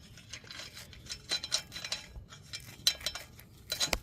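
Steel lug nuts clinking and rattling as they are threaded by hand onto a car's wheel studs: a string of irregular light metallic clicks, a sharper knock near the end.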